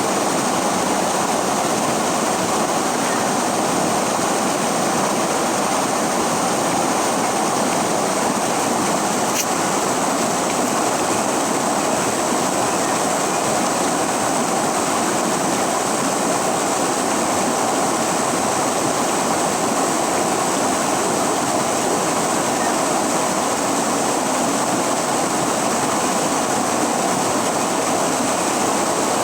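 River water rushing steadily, an even, unbroken sound.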